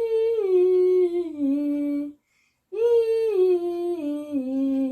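A voice humming the 'nnn' sound of the letter N twice. Each hum lasts about two seconds and steps down in pitch.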